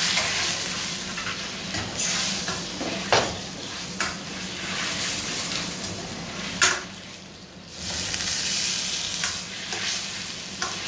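Sweet-and-sour sauce with pineapple sizzling in a wok while a metal ladle stirs it, scraping round the pan, with two sharp knocks of the ladle on the wok about three and six and a half seconds in. The sizzle drops briefly just after the second knock.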